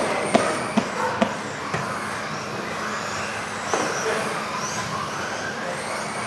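Electric off-road RC buggies racing, their motors whining high and rising and falling in pitch as they speed up and slow down. Several sharp knocks in the first two seconds, from the cars hitting the track or each other.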